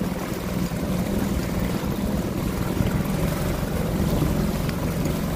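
Small outboard motor running at a steady pitch as the boat moves under way, over a steady rush of wind and water.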